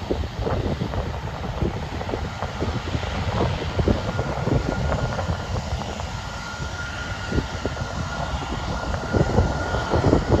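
Twin-engine Beechcraft propeller plane taxiing, with a steady high whine from its engines coming in about four seconds in. Wind gusts buffet the microphone throughout.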